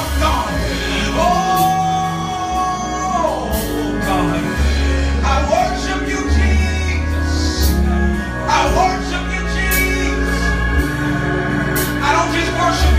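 Gospel worship music: a band with steady bass and cymbals playing under sung voices, with a long held sung note early on.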